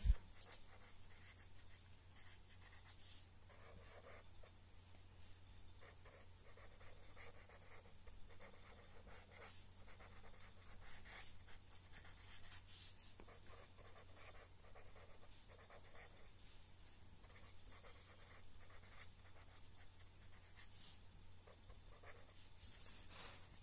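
Pen writing on paper: faint scratching strokes at irregular intervals as words are written out by hand, over a low steady hum.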